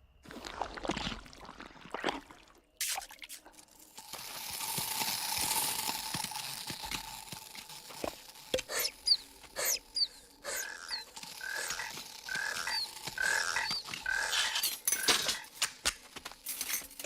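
A string of cartoon sound effects. First come scattered clicks and knocks, then a steady hiss from about four seconds in, and in the second half a run of short squeaky chirps, roughly one every three-quarters of a second, mixed with sharp clicks.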